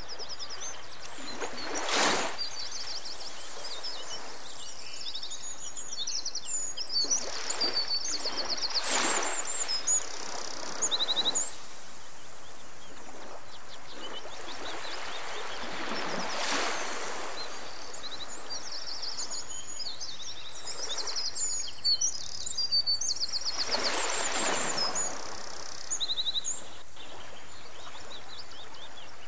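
Small birds chirping and singing rapid high trills in two bouts over a steady outdoor background hiss and low hum. A soft rushing swell rises and fades about every seven seconds.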